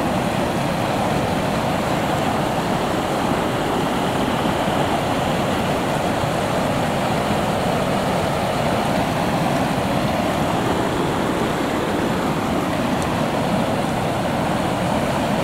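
Flooded creek rushing strongly over a low road crossing: a steady, unbroken wash of churning water.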